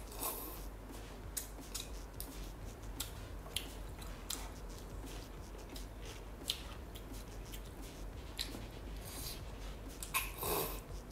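Slurping spicy glass noodles from a cup, then chewing with many short, wet clicks, and another slurp about ten seconds in.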